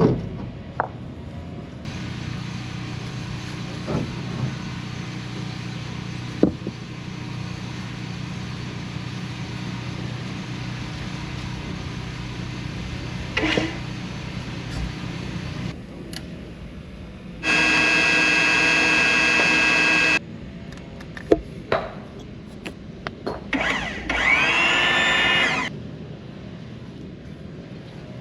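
A power tool running in two short loud bursts: first a steady whine for about three seconds, then, after a few knocks, a second burst whose pitch rises. Before them, a steady mechanical hum with occasional knocks.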